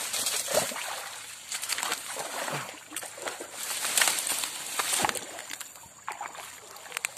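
Irregular rustling of undergrowth and sloshing of shallow stream water as people push through brush and move along a muddy streambank.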